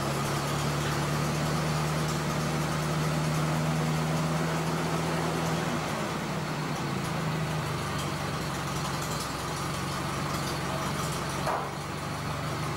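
Vintage farm tractor engine idling steadily. Its low note falters for a second or so about six seconds in, and a brief rising squeak sounds near the end.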